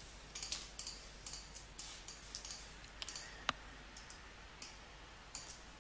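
Faint, irregular clicking of a computer mouse and keyboard, with one sharper click about three and a half seconds in.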